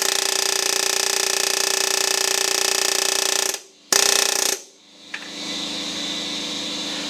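Hammering power tool running steadily while driving a seized piston out of a locked engine. It stops about three and a half seconds in, gives one short loud burst about half a second later, and a quieter steady mechanical hum follows from about five seconds in.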